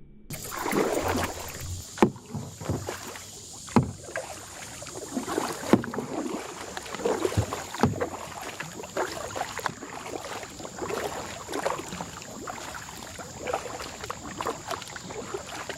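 Kayak on the move: paddle strokes splashing in the water, with sharp knocks about every two seconds during the first half.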